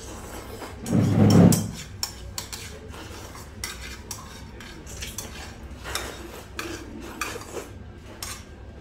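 Someone eating jjamppong noodle soup: a loud slurp of noodles about a second in, then scattered short clicks of chopsticks against the bowls and sips of broth.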